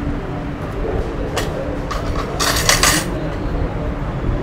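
Spoon and dishes clinking and scraping as chicken is served from a metal karahi pan, with a short scrape about a second and a half in and a longer one a little past halfway, over a steady low hum.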